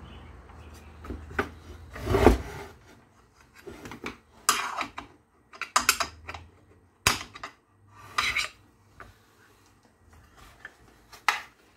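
Hand tools and metal parts of a circular saw scraping, rubbing and clicking in short, irregular strokes as the saw is taken apart.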